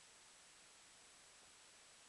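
Near silence: only a faint, steady hiss of background noise.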